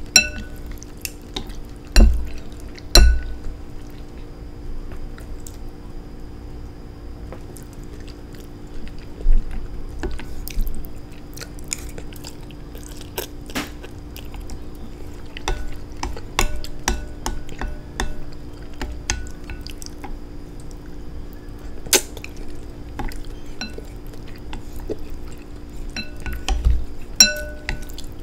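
Cutlery clinking and tapping against dishes and a glass while eating, with many small scattered clicks and a few sharp knocks, the loudest about two and three seconds in.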